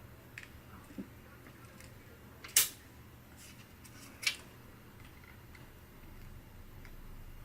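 Sharp clicks and taps of laptop parts and tools being handled during disassembly. Two loud clicks come about a second and a half apart in the middle, with a few fainter ticks around them.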